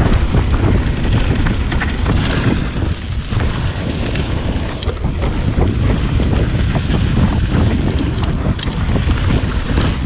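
Heavy wind buffeting on an action camera's microphone from riding a mountain bike fast downhill, mixed with tyres rolling over loose gravel and scattered small clicks and rattles from the bike on the rough surface.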